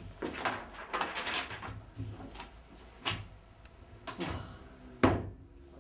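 Sheets of paper being handled and shuffled on a wooden table: a run of short rustles, with a sharper thump about five seconds in.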